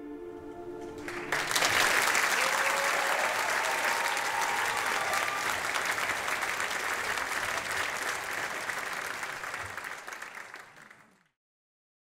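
The music's held final chord cuts off about a second in, and a theatre audience applauds; the applause fades out near the end into silence.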